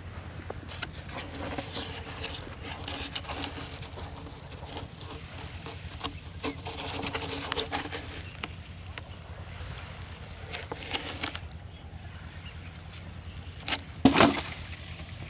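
A large weathered polystyrene foam block handled by hand, rubbing and crunching in uneven bursts, then a loud thump near the end as it lands on the shelly sand.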